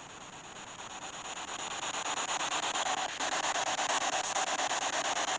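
A ghost box device hissing static. It swells over the first couple of seconds, then holds steady with a fast, even flutter.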